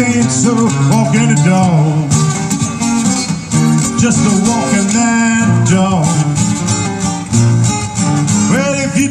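Live acoustic band playing an instrumental passage: acoustic guitars strumming a steady rhythm, with a lead melody of bending notes over them.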